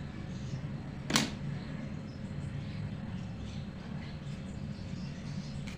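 One sharp click about a second in, over a steady low hum, from handling a hair straightener while crimping hair wound on a hairpin.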